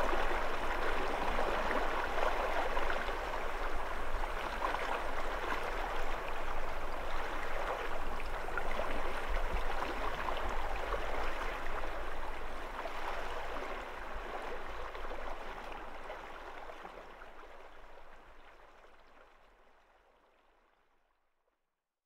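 Shallow river running over a rocky bed, a steady rushing babble of water, fading out over the last few seconds.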